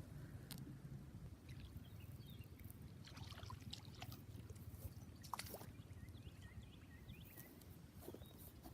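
Quiet outdoor background: a low steady rumble with a few faint clicks and faint short chirps.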